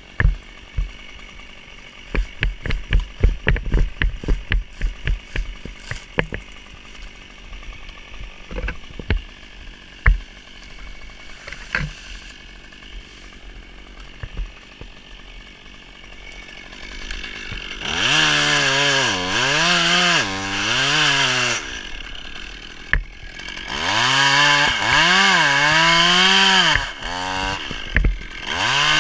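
A run of sharp knocks and clicks, quick at first and then scattered. After that a chainsaw starts and runs in two long spells with a short break between, its pitch swinging up and down as it revs against a coconut palm trunk, with a brief burst near the end.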